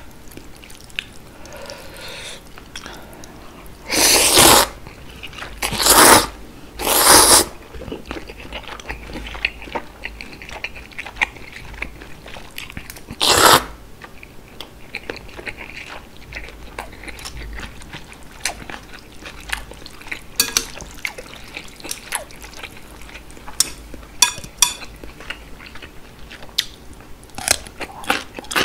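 Close-up eating sounds of chewy noodles in spicy broth: four loud slurps, about four, six, seven and thirteen seconds in, with wet chewing and smacking clicks between them.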